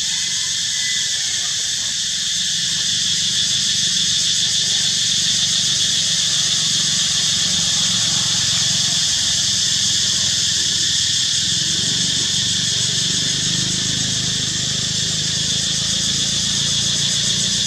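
Steady high-pitched chorus of insects over a low even hum.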